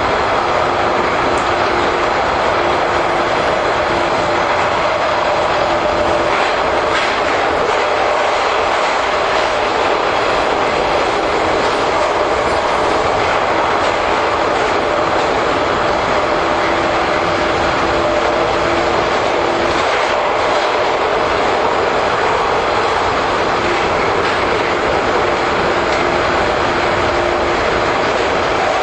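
JR 415 series electric multiple unit running at speed, probably through the Kanmon Tunnel: a steady roar of wheels and track with a low hum that comes and goes.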